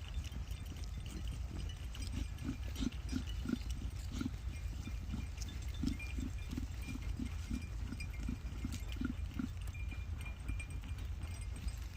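Sheep, heard as a row of soft low thuds about three a second that stops about three quarters of the way through, with faint clicks and short thin high tones over a steady low rumble.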